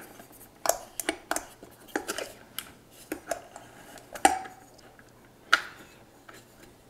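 Scattered clicks and knocks of a KitchenAid food chopper being taken apart and fitted back together: the lid, blade and parts knocking against the stainless steel work bowl, one knock about four seconds in with a brief ring.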